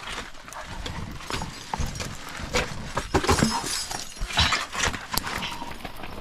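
Metal climbing gear clinking, knocking and scraping against rock and ice in irregular strikes, loudest around the middle.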